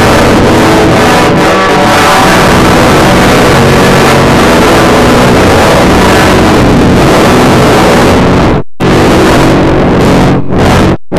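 Very loud, heavily distorted rock band recording: a dense wall of distorted guitar. It cuts dead to silence twice, briefly, in the last few seconds.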